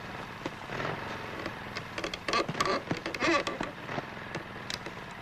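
Motorcycle engines of sidecar motorcycles running with a steady buzz. A cluster of sharp cracks and clicks comes about two seconds in and lasts over a second.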